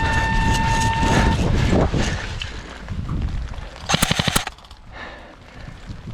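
A horn gives a steady blast that cuts off about a second in, signalling the start of an airsoft game. About four seconds in, an airsoft gun fires one short full-auto burst of rapid, evenly spaced shots, the loudest sound here.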